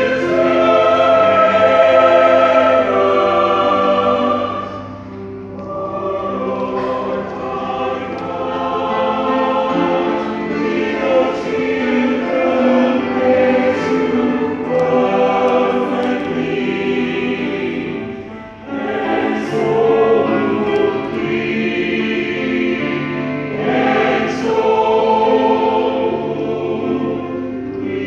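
Church choir singing a sacred song under a conductor. The sound dips briefly between phrases about five seconds in and again about two-thirds of the way through.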